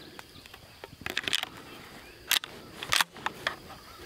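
Shotgun shells being pushed into a shotgun's tube magazine, metal clicking on metal: a quick cluster of clicks about a second in, then single sharp clicks a little after two and three seconds in.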